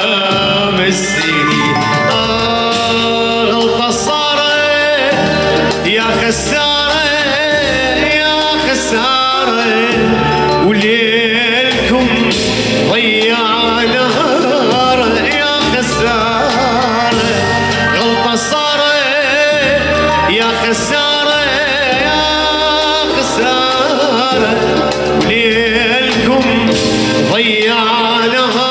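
Male singer performing an Arabic song live, his voice wavering and ornamented, over electronic keyboard accompaniment.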